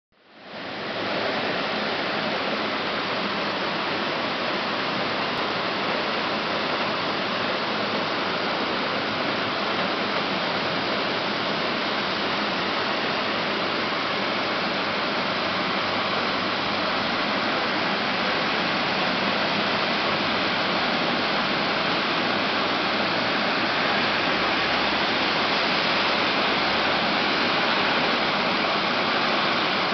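Heavy rain falling steadily, an even hiss that fades in over the first second.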